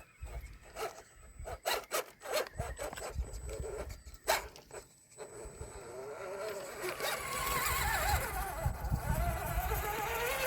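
Sharp clicks and knocks, then from about six seconds an RC rock crawler's electric motor and geared drivetrain whining, its pitch wavering up and down with the throttle and climbing near the end.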